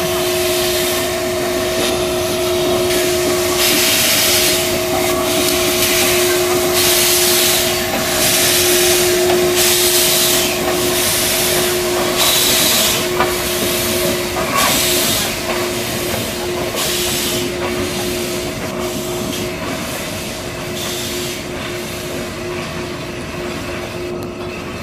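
Sri Lanka Railways Class B1 steam locomotive No. 340 'Frederick North' moving slowly under its own steam: hissing exhaust chuffs about once a second over a steady hum. The chuffs die away in the last several seconds as it eases off.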